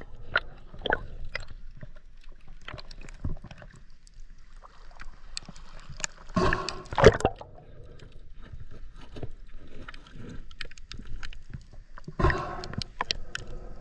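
Water sloshing and gurgling around an underwater camera, with many small clicks and ticks. Two louder gurgling rushes come about six and twelve seconds in, the first the loudest.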